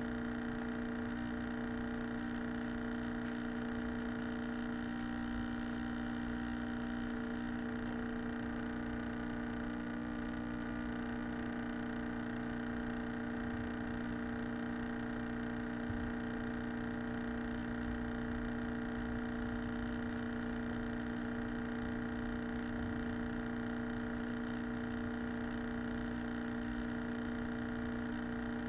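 A steady hum with a constant low pitch, unchanging in level throughout.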